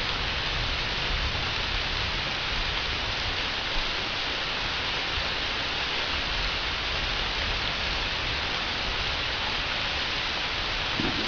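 Thunderstorm rain falling steadily, an even hiss with a few louder drop ticks.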